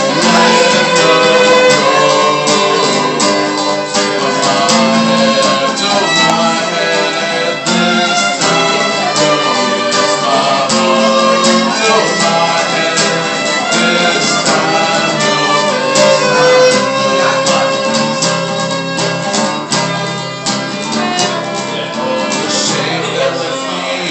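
Instrumental break of a folk song, led by fiddle over other instruments, with no singing.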